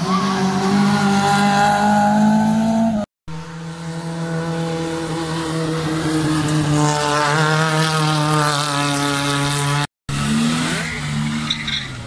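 Rally cars' engines pulling hard through tight hill-climb bends, at high revs with the pitch rising steeply about seven seconds in. The sound breaks off abruptly twice for a moment between passing cars.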